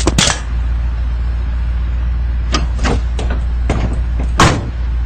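Truck engine running with a steady low drone. Several sharp knocks and clicks come over it, the loudest about four seconds in.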